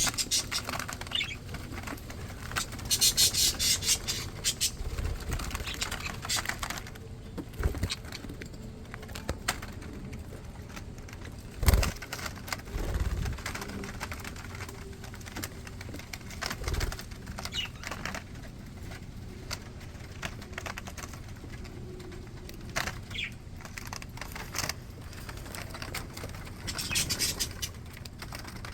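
Pet budgerigars: a few short chirps now and then, two brief bursts of rapid fluttering (about three seconds in and near the end), and one sharp knock near the middle.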